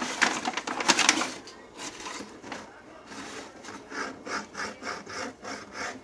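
African grey parrot scraping and gnawing at cardboard inside a box: about a second of crackly scratching, then a regular rasping at about three strokes a second.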